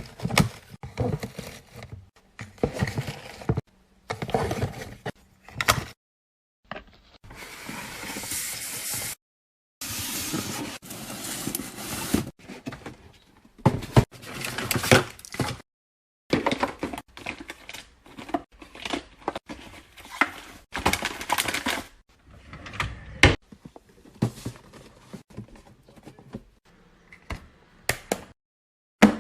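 Household handling sounds: a series of knocks, clicks and clatter of items being moved and set down, with two stretches of steady rustling or hissing noise, broken by several sudden cuts to silence.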